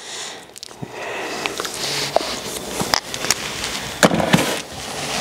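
Plastic supplement tub and small plastic scoop being handled: light rustling and scattered clicks as a dose of glutamine powder is scooped out, then a couple of sharper knocks about four seconds in as the tub is set back on a shelf.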